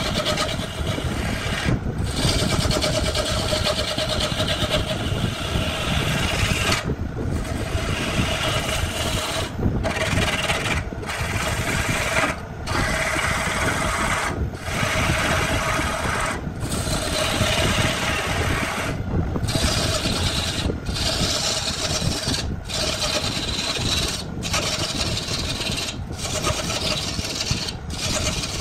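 Wood lathe spinning a large cylindrical blank while a hand-held gouge cuts into it: a steady rough scraping and shaving over the lathe's hum, breaking off briefly every second or two.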